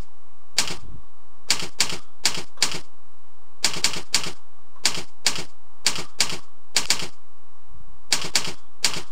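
Slow, uneven keystrokes on a computer keyboard, about two clicks a second, each key pressed singly as a sentence is typed out letter by letter. A steady hum runs underneath.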